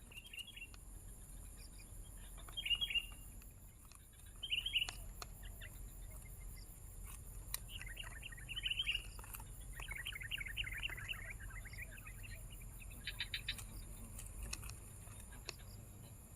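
Sooty-headed bulbul giving short clusters of high chirps, with a longer run of rapid chirps about ten seconds in.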